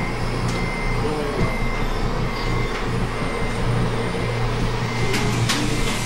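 RC scale truck's sound module playing a steady diesel engine running note, with a short high beep repeating about once a second.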